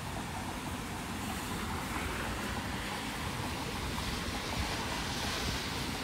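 Steady hiss of rain on wet pavement, with wind buffeting the microphone in an uneven low rumble. The hiss grows louder from about two seconds in.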